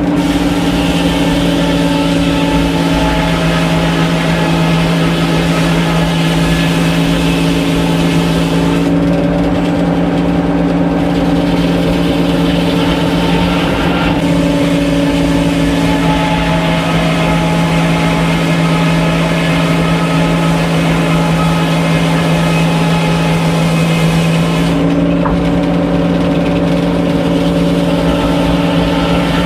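Engine-driven sawmill machinery running steadily with a loud, even hum, its pitch shifting slightly a few times.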